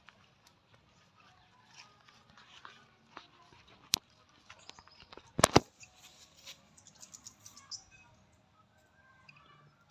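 Quiet farmyard background with faint bird chirps and small clicks, a single sharp click about four seconds in, and a loud cluster of sharp knocks about a second and a half later.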